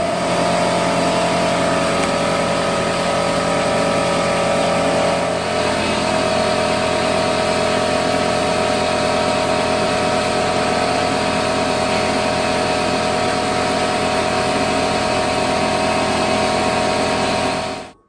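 Air compressor motor and pump running steadily, then stopping abruptly near the end.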